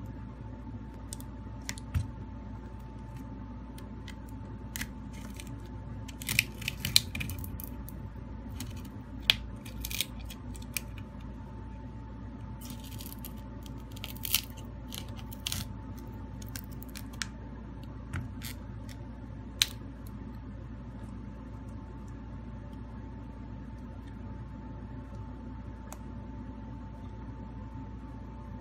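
Scattered small clicks, taps and short scrapes of metal pry tools working along the edge of a Huawei Mate 20 to separate its screen from the frame, thinning out in the second half. A steady low hum and a faint steady tone run underneath.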